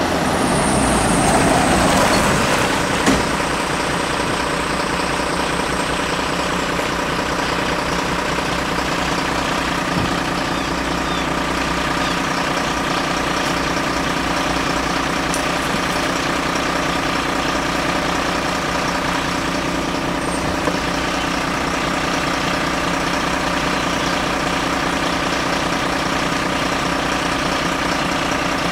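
MAN fire engine's diesel engine idling steadily. A Mitsubishi L200 pickup drives up in the first two seconds, and there is a single sharp knock about three seconds in.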